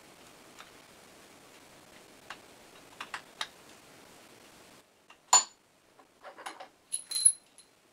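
Hand tools and steel screws clicking and clinking as the socket head cap screws holding the brake coil assembly of a Demag ZBV hoist motor are backed out: a few faint ticks, then two sharp ringing metal clinks, about five and seven seconds in, with small clicks between them.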